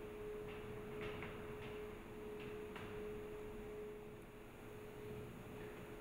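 A faint steady mid-pitched tone runs throughout. Over it are a few soft, light clicks in the first few seconds as metal seal parts are pressed and fitted by hand on the agitator shaft.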